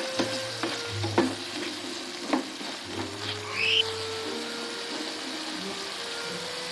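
Food sizzling in a pan with a few sharp clinks of a utensil against the cookware, as if stirring, over soft background music.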